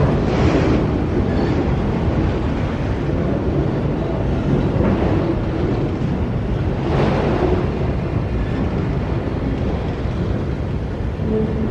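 Steady rumble of a passing train, with wind buffeting the microphone and a few brief swells; no horn sounds.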